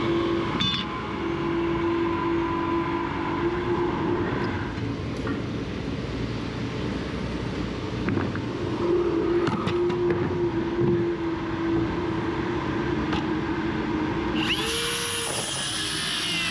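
Small engine of a piece of construction equipment running steadily, with a constant hum and a few light clicks and knocks.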